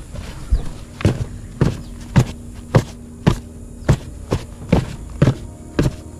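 A rubber boot kicking repeatedly into loose soil at a burrow mouth: a series of dull thuds, about two a second, a little uneven in spacing.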